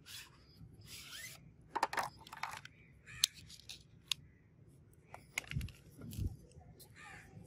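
A straight razor and its clear-lidded presentation box being handled: rustles and light scrapes with several sharp clicks as the box is opened and the razor lifted out, and two dull thumps a little past the middle.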